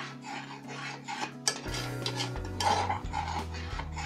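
Metal spoon stirring and scraping around the bottom of a small aluminium saucepan of hot milk, about two strokes a second, working loose the hardened caramelised sugar so it dissolves.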